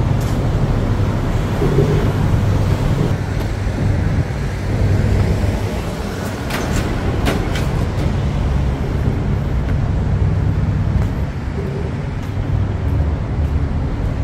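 Steady low rumble of road traffic in an open city street, with a few short clicks about halfway through.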